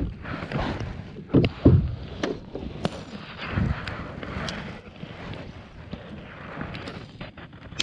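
Kayak paddle dipping and splashing in the water in uneven strokes, the loudest splashes in the first few seconds, with wind on the microphone.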